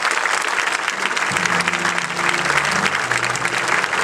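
Large audience applauding with steady clapping, and music starting under it about a second in.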